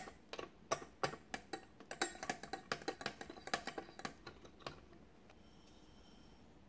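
Metal wire beaters of a hand mixer clicking and rattling against a glass bowl while beating egg yolks: quick, irregular clicks that stop about four and a half seconds in.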